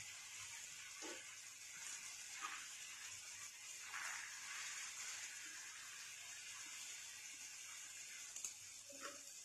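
Fish steaks in thick masala sizzling faintly in a pan, with a few soft scrapes of a steel spatula as the fish is turned over.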